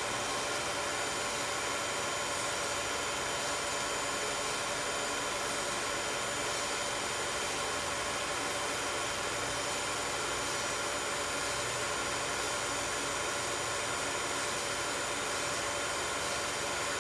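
16mm film projector running: a steady whir of motor and mechanism, with several fixed tones over an even hiss.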